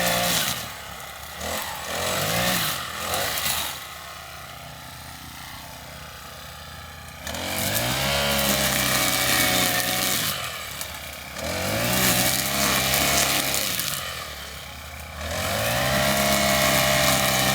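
Petrol lawnmower engine revving up and dropping back to idle again and again. It gives two short blips in the first few seconds. Then it rises in pitch and holds at high speed for a few seconds at a time, three times, falling back to a lower, quieter idle between.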